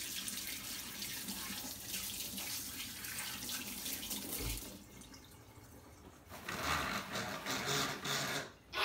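Kitchen faucet running into a stainless-steel sink while hands are rinsed under the stream, as a steady splashing hiss that drops away about five seconds in. Near the end comes a rustling as a long sheet of paper towel is pulled off its roll.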